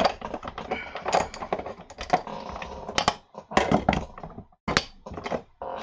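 Plastic stamping supplies being handled on a craft mat: an irregular run of quick clicks, taps and knocks, much like typing.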